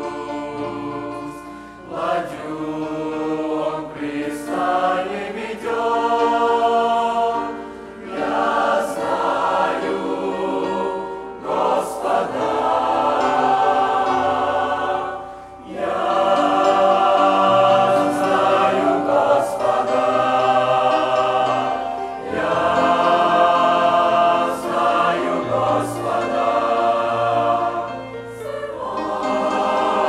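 Mixed youth choir singing a Russian hymn, in long phrases with short breaks between them.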